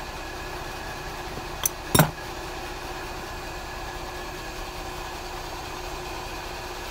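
Two sharp metallic clicks about two seconds in, the second one louder, as a small fuel pump and locking pliers are handled and knocked against each other. Under them runs a steady machine hum.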